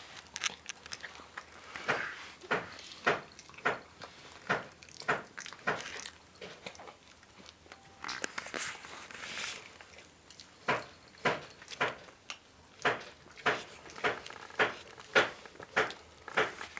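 Miniature dachshund eating from its bowl: a run of sharp chewing crunches, about two a second, with a pause in the middle.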